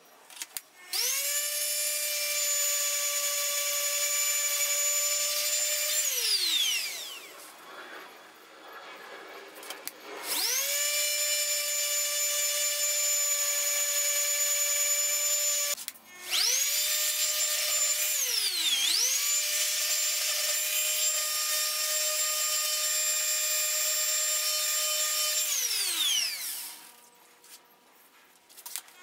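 Ridgid random orbital sander running with a steady whine as it sands the steel plate of an old hand saw. It is switched on three times, and each time it winds down with a falling whine. During the last run its pitch dips briefly and recovers.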